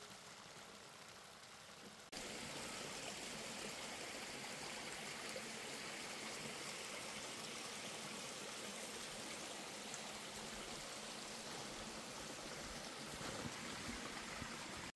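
Running water of a stream, a steady even rush that starts abruptly about two seconds in and stops suddenly at the end.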